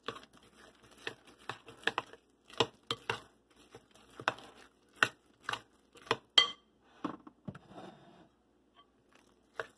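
Metal spoon stirring thick cornbread batter in a glass mixing bowl, clicking and scraping against the glass in irregular strokes. About six seconds in there is one sharper clink with a brief ring, then softer scraping that dies away.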